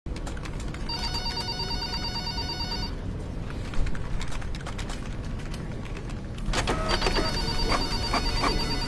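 An electronic trilling tone, like a phone ringing, sounding twice for about two seconds each, over a low steady background hum, with a run of clicks and knocks near the end.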